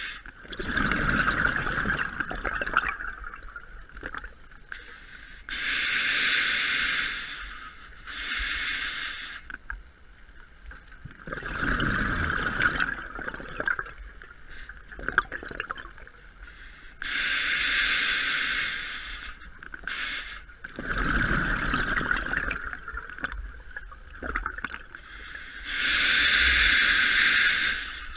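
Scuba diver breathing underwater through a regulator: slow breaths, about one every ten seconds, each a hiss of air followed by a gurgling burst of exhaled bubbles. There are about three breaths.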